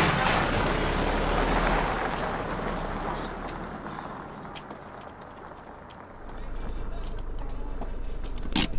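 Nissan NP300 pickup truck camper with its 133-horsepower diesel driving past close by and pulling away up the road, its tyre and engine noise loudest at first and fading over several seconds. About six seconds in a low steady hum comes in.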